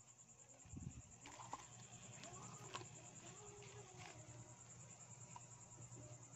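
Near silence: faint room tone with a steady high-pitched hum and a few light clicks of the plate and fish being handled.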